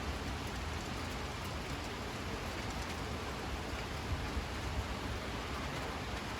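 Steady rain falling, a continuous even hiss with a low rumble underneath; a couple of slightly louder drops land about four seconds in.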